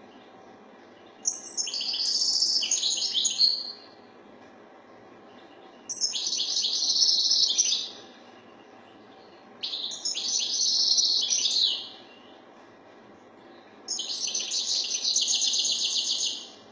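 European goldfinch singing: four phrases of rapid twittering notes, each about two seconds long, with pauses of a couple of seconds between them.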